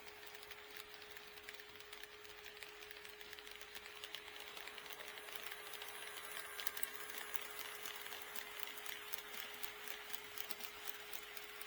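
HO-scale model train rolling along KATO Unitrack, its wheels clicking quickly over the rail joints; the clicking grows louder and busier about halfway through as the train comes close.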